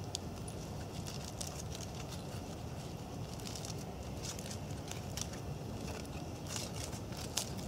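Small campfire of thin twigs crackling, with irregular sharp snaps and pops, one louder snap near the end, over a steady low background noise.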